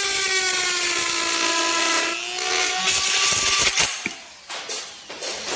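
Handheld electric rotary tool running at its second speed with a steady high whine that sags slightly in pitch. About two seconds in, a rough grinding noise comes in as the bit works into a plastic bottle, followed by scattered clicks and rattles as the sound drops away.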